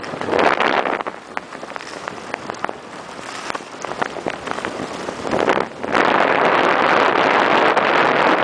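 Rushing noise of skiing in a snowstorm: wind over the microphone and skis sliding on snow. It dips quieter for a few seconds, with scattered light ticks, and comes back loud about six seconds in.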